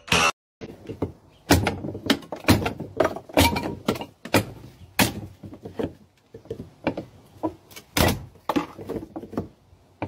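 Post-mounted lever-arm kindling cutter chopping small blocks of wood: a run of sharp wooden chops and knocks, one to several a second.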